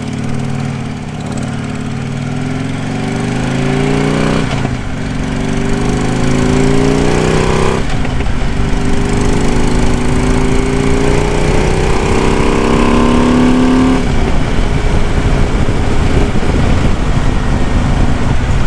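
Harley-Davidson motorcycle's V-twin engine accelerating through the gears, heard from a mic inside the rider's helmet. The engine note climbs, breaks for an upshift about four and a half seconds in, climbs again, shifts about eight seconds in, and climbs once more. After about fourteen seconds the engine note drops away into a steady rush of road and wind noise at cruising speed.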